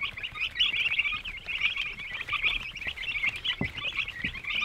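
A brooder full of Ross broiler chicks peeping, many high chirps overlapping without a break. Two soft low knocks come near the end.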